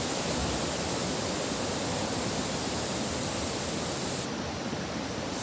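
Strong gusting wind rushing steadily, with a low irregular rumble of wind buffeting the microphone. A bright high hiss rides on top and stops abruptly about four seconds in.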